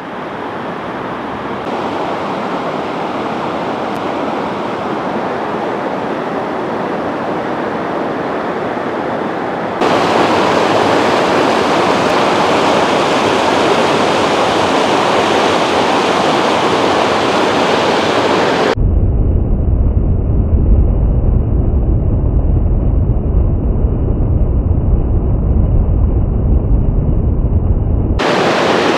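Rushing water of river rapids, a steady roar that gets louder about ten seconds in. For the last third it gives way to a deep, dull rumble with the high end cut off.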